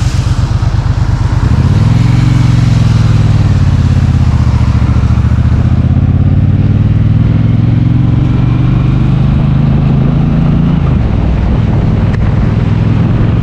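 Triumph Bobber's 1200 cc parallel-twin engine pulling under throttle: its pitch rises about two seconds in, holds steady, then drops near the end as the throttle closes and the bike slows. Wind hiss on the rider's microphone runs underneath.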